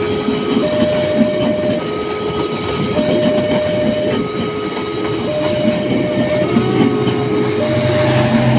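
A train passing with a continuous rumble and clickety-clack, while a level-crossing warning alarm sounds a steady two-note signal, alternating between a higher and a lower note about every second. A low steady hum joins near the end.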